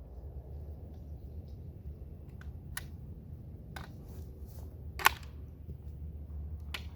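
Steady low rumble with four sharp clicks or knocks, the loudest a little past halfway.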